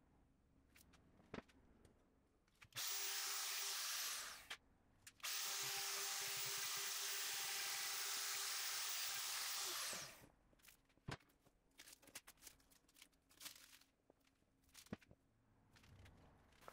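Compact router with a brass guide collar cutting a leg-plate recess into the tabletop through a plywood template. It runs briefly, stops, then runs again for about five seconds with a steady whine and winds down as it is switched off. A few light clicks and knocks come before and after.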